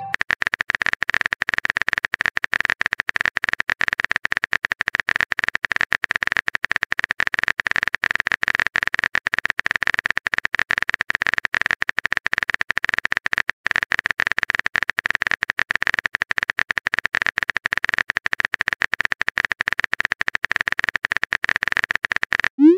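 Texting-app keyboard typing sound effect: rapid, even clicks running on almost without a break while a long message is typed, with one short pause a little past halfway.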